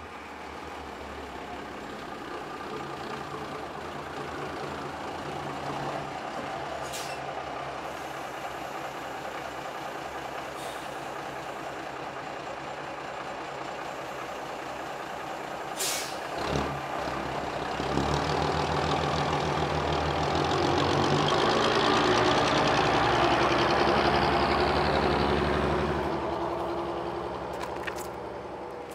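Old intercity bus engine running steadily as the bus arrives and stands, with a short sharp hiss about halfway through, typical of an air brake. The engine then revs up louder as the bus pulls away and fades off near the end.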